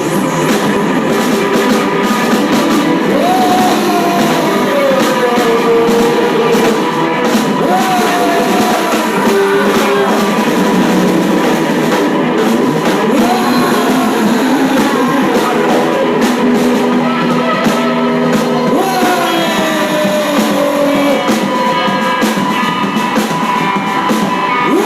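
Live noise music on electric guitar: a loud, dense wash of distorted sound with held steady tones and slow falling pitch glides every few seconds.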